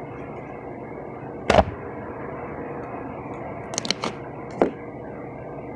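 Steady background hiss with one sharp click about a second and a half in and a few softer clicks and taps near the end.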